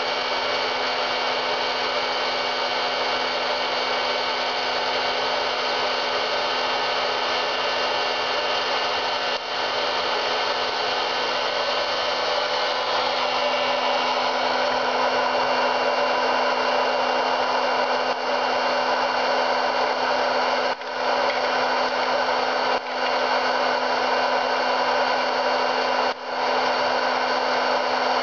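Hot-air popcorn maker running: its fan blows with a steady rushing noise over a constant motor hum, dipping briefly a few times.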